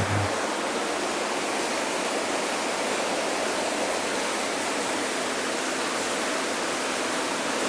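Twin-tub washing machine's spin dryer running with a steady, even whoosh and no knocking, its broken rubber shaft mount freshly replaced.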